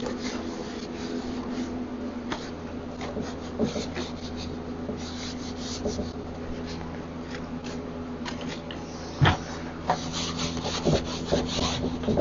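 Cloth rag wiping and rubbing over the wooden surfaces inside a cabinet, in irregular strokes, with a single knock about nine seconds in. A steady low hum runs underneath.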